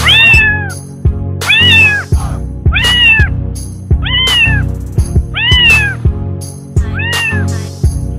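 A cat meowing about six times, roughly once a second. Each meow is high-pitched and rises then falls in pitch. Background music with a steady beat plays underneath.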